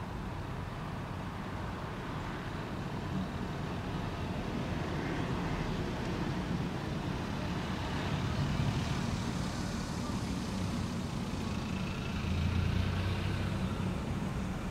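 City traffic noise: a vehicle passes, its tyre and engine noise swelling past the middle and fading again, with a deeper low rumble near the end.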